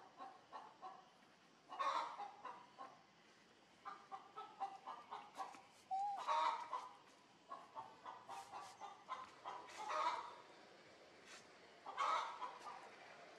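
Chickens clucking: runs of short, quick clucks, with a few louder calls about 2, 6, 10 and 12 seconds in.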